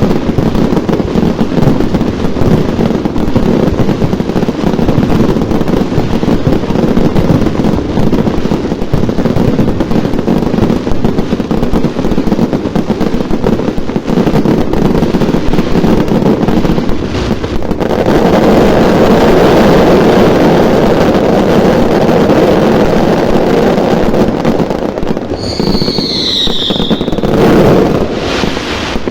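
Fireworks display: a loud, dense, continuous barrage of bangs and crackling, growing fuller about two-thirds of the way in. Near the end a high whistle falls in pitch for about a second.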